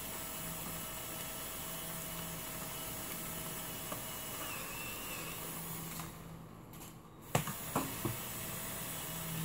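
Steady hiss of light rain falling. About six seconds in, the hiss is briefly muffled, then a sharp knock and three smaller knocks follow.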